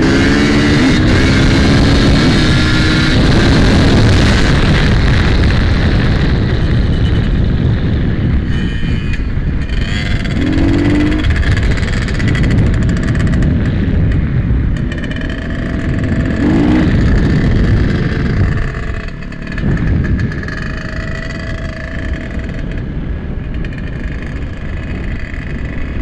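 Dirt bike engine running at speed, heard from the rider's own bike over a constant rush of wind noise. The revs climb near the start and briefly rise again twice, about ten and sixteen seconds in.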